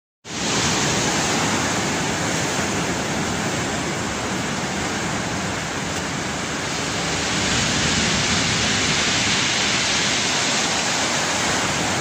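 Storm surf on the Black Sea: heavy breaking waves making a steady, loud rushing noise with no distinct separate crashes.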